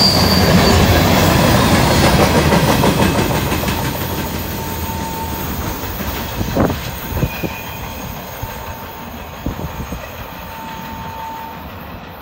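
Freight train of tank cars, a centerbeam flatcar and gondolas rolling past with clattering wheels and brief faint wheel squeal, fading as the last car goes by and the train moves away. A single sharp knock about two-thirds of the way in.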